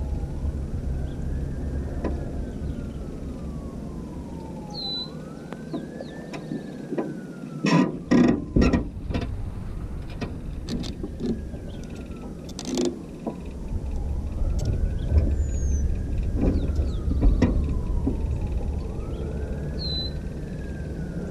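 A whine that rises and falls slowly, repeating every few seconds, over a low rumble. There is a cluster of sharp knocks about eight seconds in and another around thirteen seconds.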